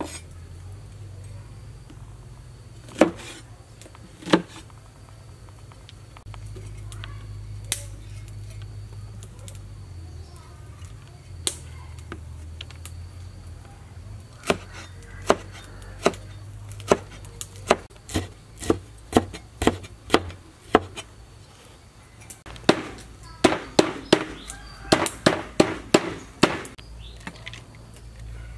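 Heavy cleaver chopping fresh herbs on a wooden cutting board: a few scattered single strikes, then a run of steady chops at about two a second, then a quick flurry of chops near the end. A low steady hum runs underneath.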